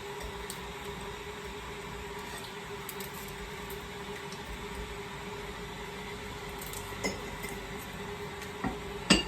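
Steady hum with a few light clicks and small knocks, the sharpest near the end, as black cardamom pods are broken and dropped into a pot of chicken and lentils.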